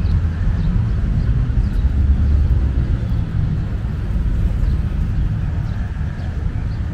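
Outdoor city ambience: a steady low rumble with a few faint, brief high chirps over it.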